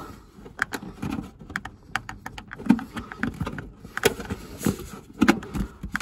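Thin plastic base panel of a Hotpoint condenser tumble dryer clicking, creaking and knocking irregularly as it is pushed up and down by hand to flatten a cracked, popped-out section.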